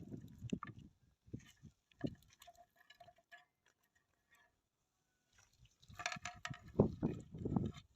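Irregular clicks and knocks, sparse at first, then a near-silent gap, then a quick run of knocking and clatter in the last couple of seconds.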